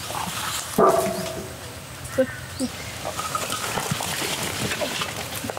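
A dog barks once, loudly, about a second in, with a few fainter yelps after, over light clattering and slithering as wet fish are tipped from metal trays onto the heap.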